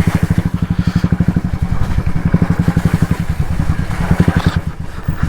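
Royal Enfield Classic 350's single-cylinder engine thumping steadily as the motorcycle rides through a muddy off-road track, slowing near the end.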